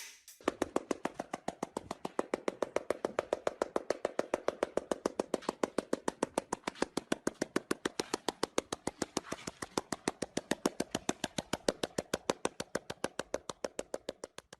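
Rapid, evenly spaced clicks or taps, several a second, keeping a steady, unbroken rhythm.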